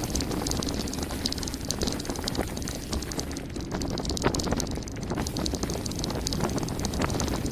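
Mountain bike descending a gravel forest road at speed: tyres crunching over loose stones while the bike rattles and clicks over the bumps, with a steady rumble of wind on the microphone.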